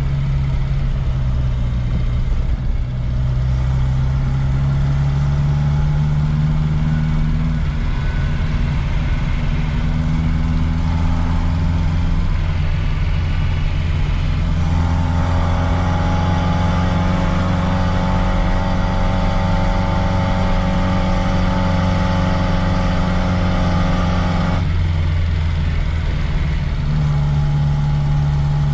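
Reliant Regal three-wheeler's four-cylinder engine driving the car along, loud inside the cabin with its engine covers off and not yet warmed up. The pitch shifts a few times, and from about 15 to 25 seconds in it runs harder with a higher whine before the revs drop suddenly.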